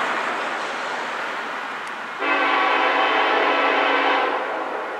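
Air horn of an approaching diesel locomotive, the UP SD70ACe leading the NS track geometry train, sounded from a distance. An earlier blast dies away over the first two seconds, then a single long blast of about two seconds starts sharply and cuts off.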